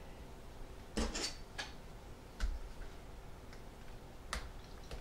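Light, irregular clicks and taps, about six, as a laser-cut wood siding sheet is handled on a cutting mat and a pointed hobby knife picks at its corner.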